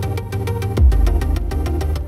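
Background electronic music with a steady beat and a deep bass hit a little under a second in.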